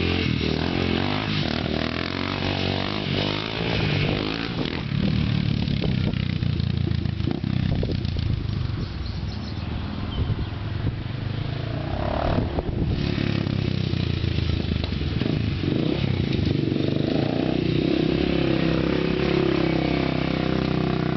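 Honda 400EX ATV's single-cylinder four-stroke engine running and revving, its pitch rising and falling with the throttle, with a steadier run near the end.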